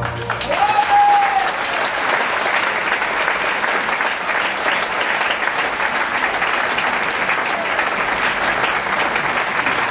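Audience applauding steadily as the opera duet ends, with one short call rising above the clapping about half a second in.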